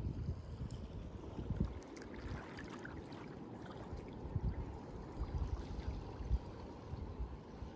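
Wind rumbling unevenly on the microphone, with the soft wash of small waves lapping on a sandy shore.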